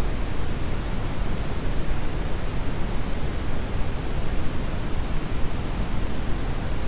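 Steady brown noise: a deep, even rushing hiss, strongest in the lows and rolling off toward the highs, with no change.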